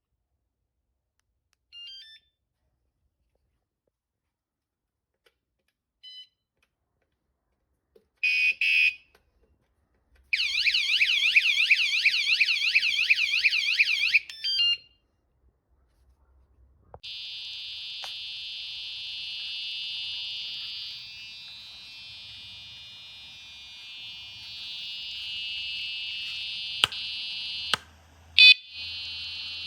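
Fosmon bike alarm sounding: a few short chirps, then a loud warbling siren for about four seconds. After a pause a quieter, steady multi-tone alarm sound runs for about ten seconds, and a few loud beeps come near the end.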